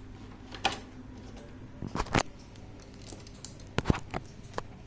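Handling noise as a plastic flatbed scanner is moved and worked on by hand: scattered sharp clicks and knocks, the loudest a quick pair about two seconds in, over a steady low hum.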